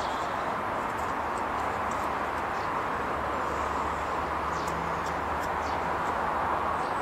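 A few faint small clicks of a screwdriver and screw being worked into a washing machine's timer housing, over a steady background hiss.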